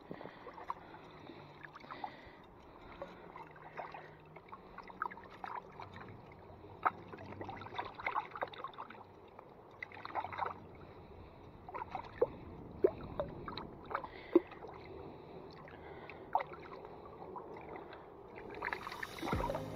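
Hands splashing and sloshing in shallow creek water while handling a metal chain fish stringer, with many small irregular splashes and sharp clicks.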